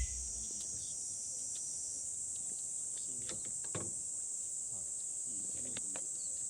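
A steady high-pitched chorus of insects shrilling without a break, with a single low thump right at the start.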